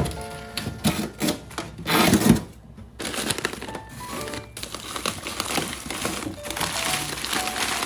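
Background music, with a string of sharp clicks and knocks in the first three seconds, the loudest about two seconds in, followed by a steadier rustling.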